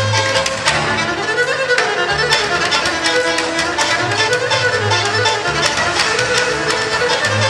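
A Bulgarian folk rachenitsa, a dance tune in 7/8, played by a small acoustic trio. A bowed gadulka carries the winding melody over a quickly strummed tambura and a plucked double bass keeping a steady, driving rhythm.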